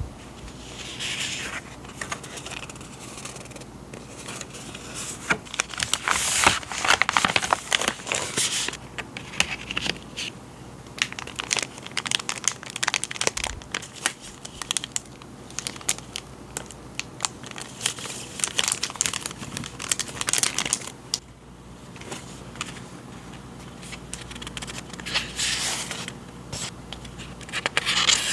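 Packaging being handled and unwrapped: crinkling and rustling with many small clicks and taps. The bursts are busiest about five to nine seconds in and again near the end.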